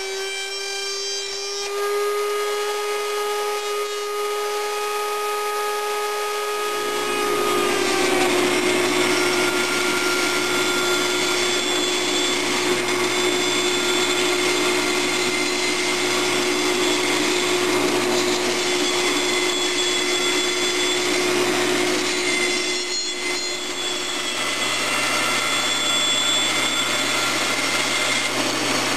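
A table-mounted router running with a steady whine for the first six or seven seconds, then a Delta band saw running with a low hum and the rasp of its blade cutting a curved wooden canoe stem for the rest.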